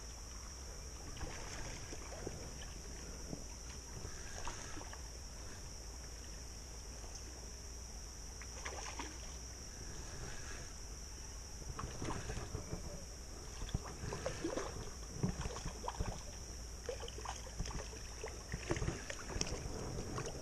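Steady high-pitched drone of insects over a creek, with scattered splashes and sloshing of water around a wader's legs that come more often in the second half.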